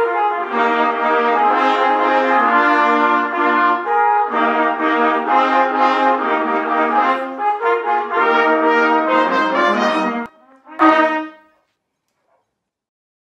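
A student brass ensemble of trumpets, cornets and flugelhorns playing a piece together in sustained chords, breaking off briefly about ten seconds in and ending on one short final chord about a second later.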